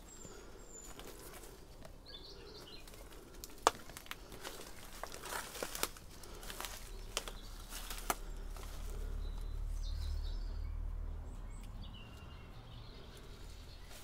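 Footsteps crunching over rubble and debris, with scattered clicks and snaps, while birds chirp faintly. A low rumble swells and fades in the middle.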